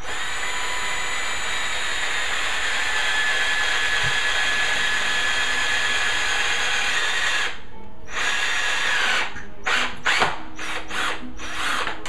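Corded electric drill boring a pilot hole through a pine 2x4 for a deck screw. It runs with a steady whine for about seven and a half seconds, then is run in a series of short bursts.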